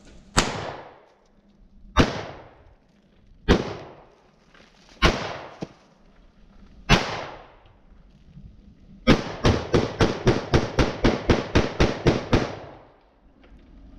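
Gunshots at targets: five single shots about a second and a half apart, then a rapid string of about fifteen shots at about five a second from a semi-automatic firearm, each with a short echo.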